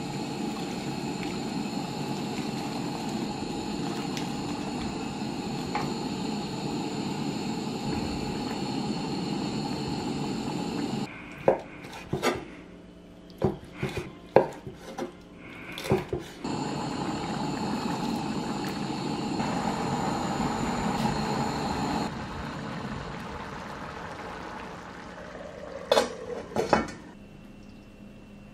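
Steady sizzling as broth is poured onto hot rice in a steel pan. In the middle comes a run of sharp knife strikes on a wooden cutting board as chicken breast is sliced. Then the sizzling returns, and two sharp clanks come near the end.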